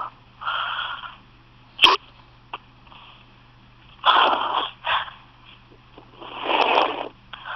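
Hiccups: a sharp, very short hic a little under two seconds in, with longer breathy bursts before it, around four seconds in, and again from about six seconds in.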